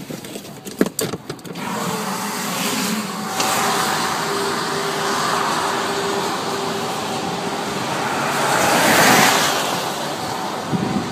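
Road and wind noise inside a moving car on a wet highway: a steady rush with tyres hissing on the wet pavement and a faint steady hum. It sets in about two seconds in after a few sharp knocks and swells briefly near the end.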